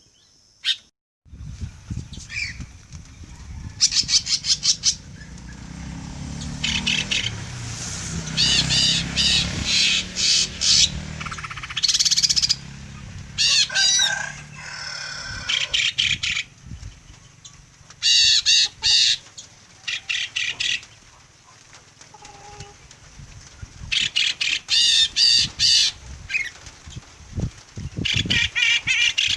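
Caged songbirds calling in repeated bursts of rapid, harsh, wavering chattering trills, about a dozen bursts each lasting around a second, with a low rumble underneath during the first half.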